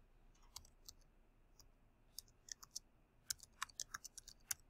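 Faint keystrokes on a computer keyboard as a word is typed: a few scattered taps at first, then a quicker run of clicks from about two seconds in.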